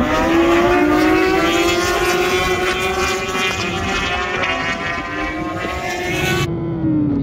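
BMW S1000RR inline-four sportbike engine running hard at high revs, its pitch climbing slowly for a few seconds and then easing, with wind rush over an onboard microphone. About six and a half seconds in the wind hiss drops away abruptly and the engine note falls as the throttle comes off.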